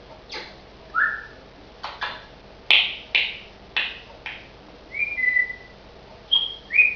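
African grey parrot whistling and chirping: short whistles that slide up or down in pitch, with a run of about six sharp, quick chirps sweeping downward in the middle.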